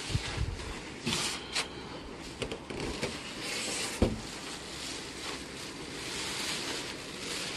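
TV packaging being handled: rustling and scraping, with a few short knocks and one louder thump about four seconds in.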